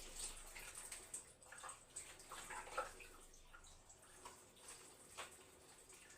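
Faint water running and splashing, with a few light clinks and knocks scattered through it.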